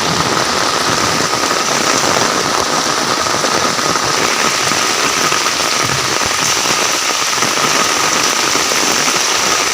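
Steady rain: an even hiss of falling drops, with a thin steady tone underneath.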